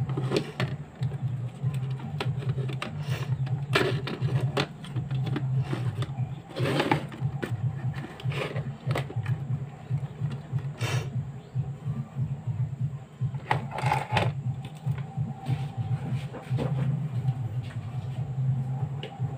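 Scattered knocks and clicks as a portable Bluetooth speaker's plastic case and circuit board are handled and set down. Under them runs a steady low drone with a pulsing texture, from an unseen source.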